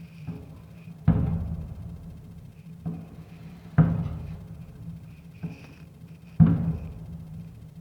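Fireworks shells bursting with deep booms, three in a row about two and a half seconds apart, each dying away over about a second, with fainter pops between them.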